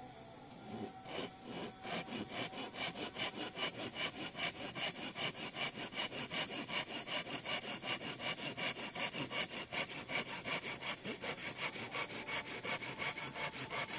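Ishinoko Genbaya folding saw cutting through a thin branch, with quick, even back-and-forth rasping strokes at about three to four a second, starting about a second in.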